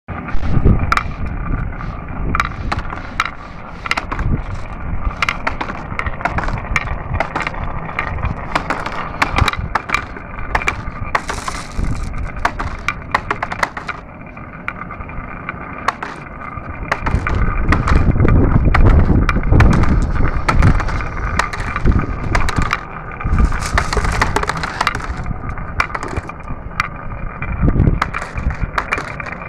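Marbles rolling down a marble run track, with a steady rolling rumble and frequent sharp clicks as they knock against the track and each other. The rumble grows louder for a few seconds about halfway through.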